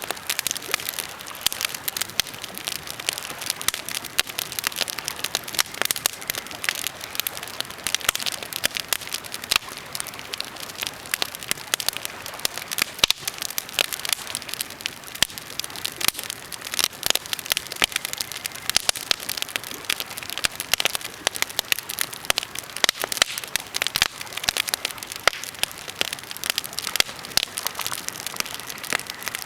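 Birch and pine campfire crackling, a dense, irregular run of small snaps and pops over a soft hiss.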